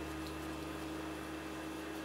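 A steady low hum over a faint hiss, with a few faint ticks.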